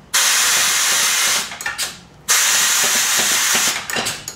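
Air-powered Kinyon-style power hammer run twice from its foot treadle: each run is a loud hiss of compressed air exhausting through its valves, lasting about a second and a half. A few sharp clicks and knocks follow as each run stops.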